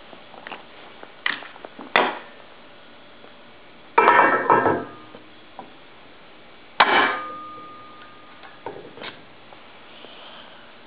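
Steel ball neck of a Westfalia detachable towbar being fitted into its receiver by hand. A few knocks, then a cluster of rattling metal clunks about four seconds in, then one sharp, ringing clunk about seven seconds in as the lock snaps home, followed by a few light clicks.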